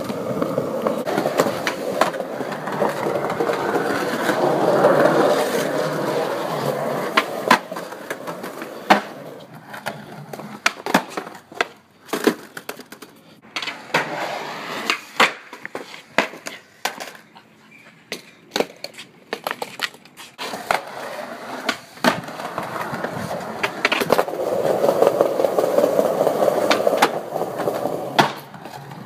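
Skateboard wheels rolling over rough concrete, with sharp clacks of the board popping, hitting ledges and landing. The rolling is loudest at the start and again near the end; in between there are mostly scattered clacks.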